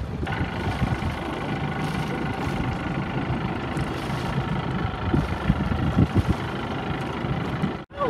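Boat engine running steadily under a low, gusty wind rumble on the microphone; the sound cuts off suddenly near the end.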